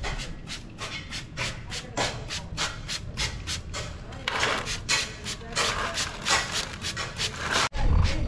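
Plastic trigger spray bottle misting potting soil and seedlings: quick repeated squeezes, about three to four short hissing sprays a second. Near the end the sound cuts off suddenly and gives way to a low rumble.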